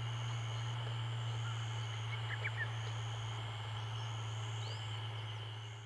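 Rural evening outdoor ambience: a steady low hum under a continuous high-pitched chirring chorus, with a few short bird chirps around the middle and one rising chirp near the end.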